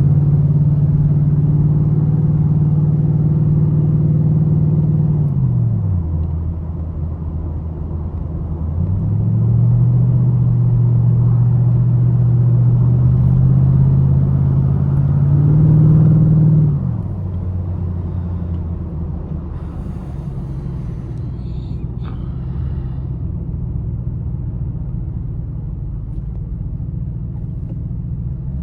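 2008 Ford Mustang GT's 4.6-litre V8 pulling under acceleration for about five seconds, easing off, then pulling again with its pitch slowly rising from about nine seconds in until it drops back near seventeen seconds. After that it settles into a low, steady drone with road noise.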